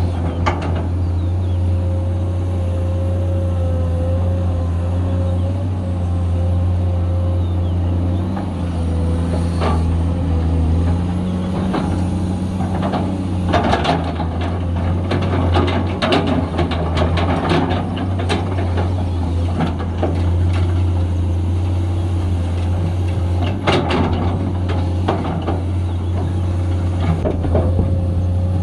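Komatsu 210 hydraulic excavator digging: its diesel engine runs steadily with a high whine over it. Knocks and clatters of the bucket working the soil come thickest in the middle and again near the end.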